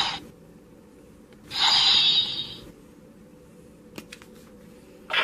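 Transformation-belt sound effects: a hissing swish ending just after the start, a second swish of about a second starting around a second and a half in, then a couple of faint clicks near four seconds, over a faint low hum.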